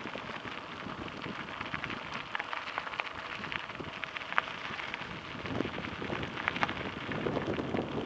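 Mountain bike rolling over a dirt and gravel trail: a steady crunch and crackle from the tyres, with many short clicks and rattles.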